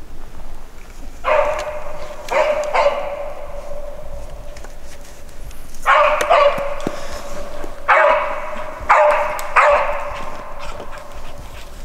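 Driving hunting dog barking on the trail, giving tongue as it runs the scent. There are about eight loud barks in three groups, each one trailing off in a drawn-out ring.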